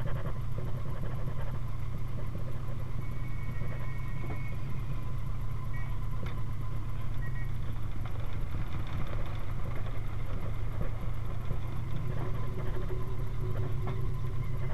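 1931 Ford Model A-based speedster's four-cylinder engine running steadily as the car drives slowly, heard from on board: an even low rumble with fast, regular pulsing.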